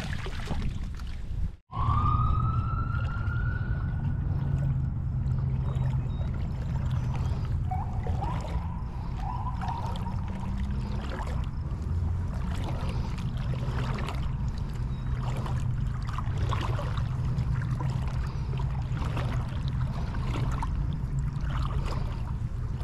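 Water splashing and swishing as someone wades through shallow water with a crab net, over a steady low rumble. About two seconds in, a long rising wail sounds for a few seconds, with fainter wavering tones later.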